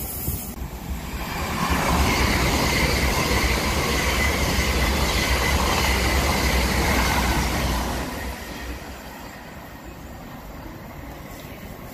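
LNER Azuma express train passing through the station at speed: a steady rush of wheels on rails that builds over the first two seconds, holds for about six, then fades.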